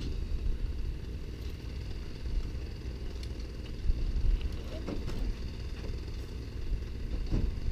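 Wind buffeting the microphone: an uneven low rumble, with faint voices now and then.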